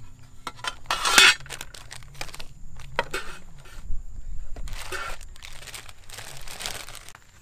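Plastic food bags crinkling and rustling in a run of separate handlings, the loudest about a second in, as packed food including a zip-lock bag of dry spaghetti is taken out of an aluminium mess tin. Light clicks and clinks of the tin and its lid come in between.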